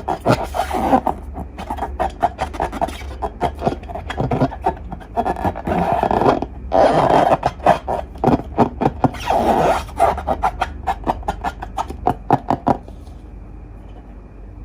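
Slime being squeezed and kneaded by hand: rapid sticky clicks and crackles in uneven surges, which stop short about 13 seconds in, leaving a low hum.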